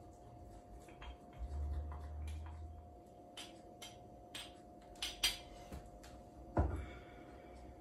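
A wooden spoon scraping and tapping as garlic paste is packed into a small glass jar: light scattered clicks and taps, with two sharper knocks about five seconds in and again a second and a half later.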